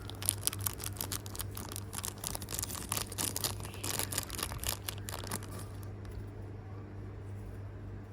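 Small plastic packaging being handled, crinkling and clicking in a quick run of crackles that stops about six seconds in.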